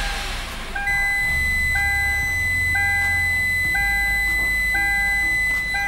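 Kia Sportage's in-cabin reverse parking-sensor warning: a beep about once a second, joined about a second in by a continuous high tone, over the low steady drone of the engine running with the A6MF1 automatic transmission in reverse.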